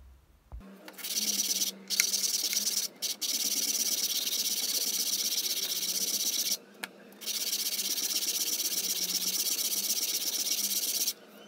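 Peroba rosa wooden knife-handle scale rubbed back and forth by hand on a sheet of sandpaper laid flat on the bench: a steady rasping hiss, broken by short pauses about 2, 3 and 7 seconds in.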